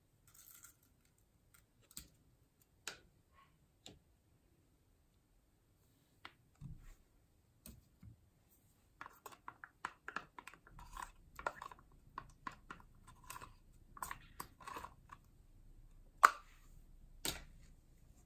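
Thick green slime being scraped out of a plastic tub with a stick and dropping onto a glass bowl of water beads: a few scattered clicks at first, then from about halfway a dense run of small clicks, with two sharper clicks near the end.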